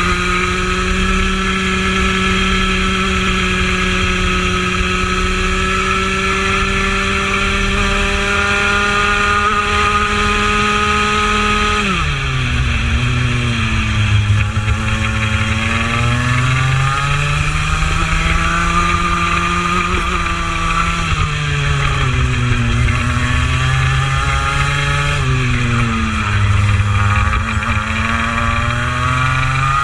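Racing kart's two-stroke engine at full throttle. Its pitch climbs slowly along a straight, drops sharply about twelve seconds in as the kart slows for a corner, then falls and rises again several times through the following bends.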